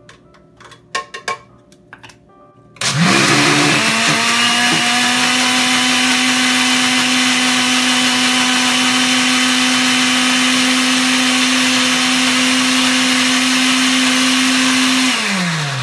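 A few light knocks, then a countertop blender starts about three seconds in. Its motor quickly climbs to speed and runs steadily at high speed, pureeing pumpkin seeds and liquid, then winds down with a falling pitch just before the end.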